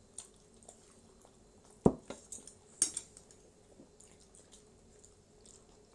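Tableware clinking during a meal: plates and cutlery knocking on the table, with one sharp knock about two seconds in and a couple of lighter clicks a second later.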